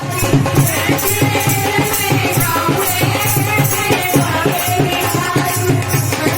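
Indian devotional bhajan music with a fast, even drum beat, rattling percussion and a held melody line.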